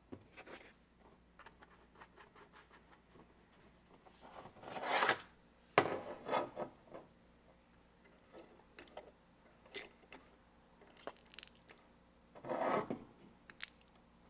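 Restored 1920s HSB & Co hand-pump oil can being handled and worked: small metal clicks and rubbing, with two longer rasping strokes, one about five seconds in and one near the end, as it is tested with oil in it.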